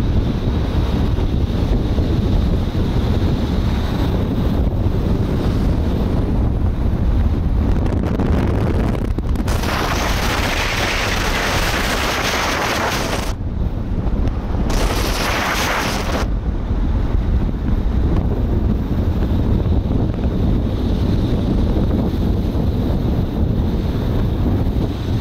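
Wind buffeting the microphone of a camera on a moving car, over the car's steady low road rumble. A louder hiss comes in about ten seconds in and lasts about four seconds, breaks off, then returns briefly.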